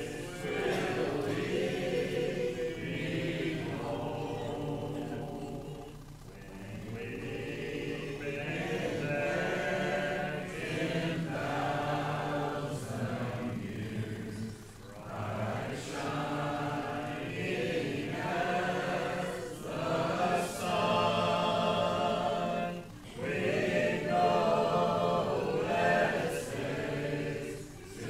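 A congregation singing a hymn a cappella, many voices with no instruments, in sustained phrases with brief breaks between lines.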